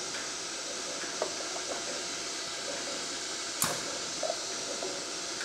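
Pneumatic cylinder on an automated filling machine pushing a plastic pot onto the load-cell scale under the filling hopper, with one sharp click about three and a half seconds in, over a steady hiss.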